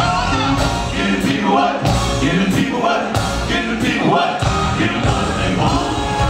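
Live R&B vocal group singing with backing vocals over a full band: electric bass, keyboards, drums and congas.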